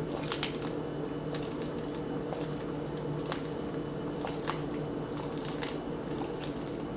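Scattered light clicks and taps of handling, irregularly spaced, over a steady low hum.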